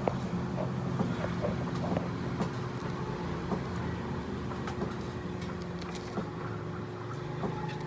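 Steady low mechanical rumble with a constant hum, with a few light clicks of a metal spoon against a plastic plate.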